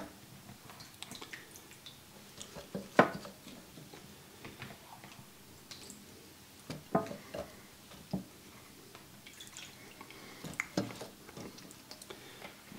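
Wet potato chunks being set one by one into a ceramic slow cooker: scattered soft knocks and clicks, with water dripping off them, the loudest knock about three seconds in.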